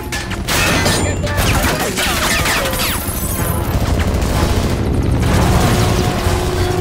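Action-film battle sound: rapid gunfire with sharp impacts over the low drone of an attacking helicopter.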